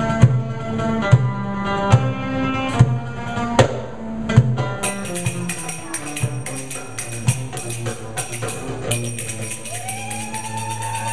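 Live Middle Eastern belly-dance music: hand-drum strokes about every 0.8 s under plucked string notes, giving way about halfway through to a shimmer of tambourine-like jingles, with a held melodic line rising in near the end.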